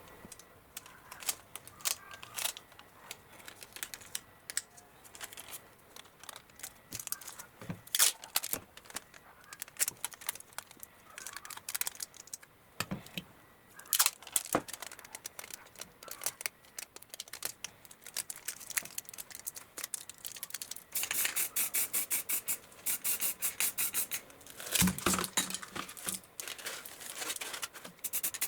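Handling noises from close work at a bench: scattered clicks, taps and light scraping, turning about three-quarters of the way in into a fast, continuous run of rasping strokes.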